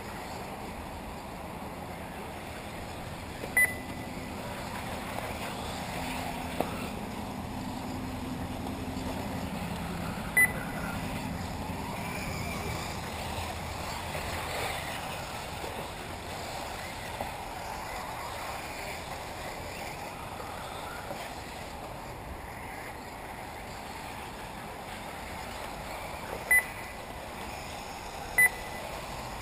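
Electric 1/8-scale off-road RC buggies running around a dirt track, a faint steady mix of motor whine and tyre noise. Four short, sharp electronic beeps cut through it, about 3.5 s, 10 s, 26.5 s and 28.5 s in.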